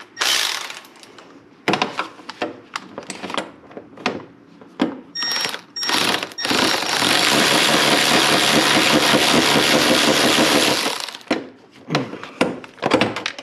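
Power ratchet running a loose valve-cover bolt out: a few short trigger bursts, then a steady run of about four and a half seconds. Clicks and knocks of the tool against the engine come before and after.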